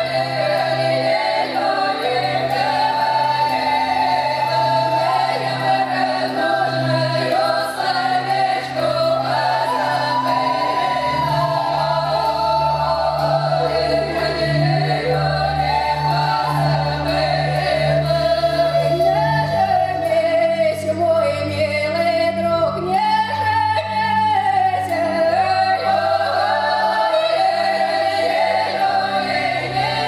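A women's folk ensemble sings a Russian folk song together in several voices, with sustained low instrumental notes underneath, as from piano accompaniment.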